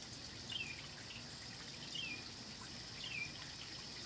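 A small songbird giving short downward-sliding chirps, three in all, about a second apart, over a steady high hiss.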